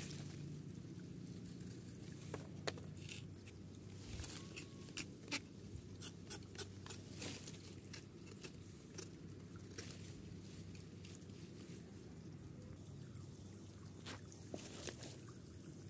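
Faint scraping and clicking of a knife working the bark off a mango stem cutting, in scattered short ticks, over a steady low hum.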